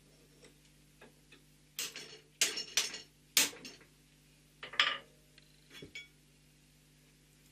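Metal tooling clinking and knocking as a fly cutter's shank is pushed and tightened into a vertical milling machine's spindle: a cluster of sharp clinks about two to three and a half seconds in, another clatter near five seconds, and a few lighter taps after.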